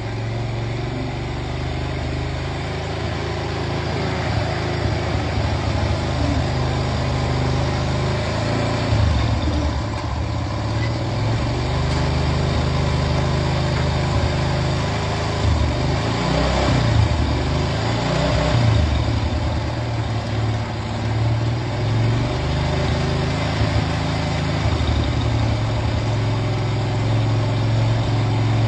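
Motor vehicle engine running steadily, its pitch rising and falling a few times in the middle as it is revved or changes load.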